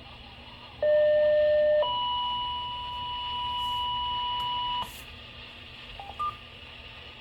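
Electronic signalling tones: a steady low beep for about a second, then a higher steady tone held for about three seconds that cuts off abruptly, then two quick short beeps near the end. The first beep is the loudest.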